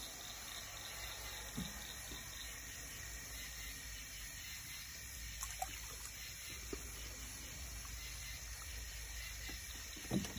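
Faint steady background noise with a low rumble, broken by a few small clicks or taps.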